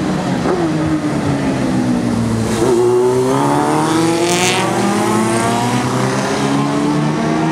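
Classic racing motorcycle engines on a circuit: one engine's pitch falls as the bike slows, then rises steadily as it accelerates away again, over a second engine running at a steadier note. A short hiss comes about four seconds in.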